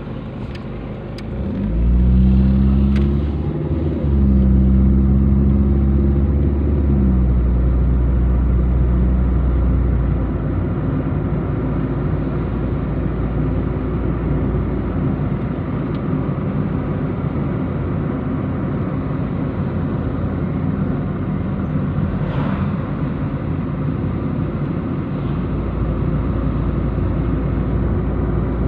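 Car engine and tyre noise heard from inside the cabin: the engine pulls away and speeds up, louder with a rising engine note for the first several seconds, then settles into a steady cruise hum.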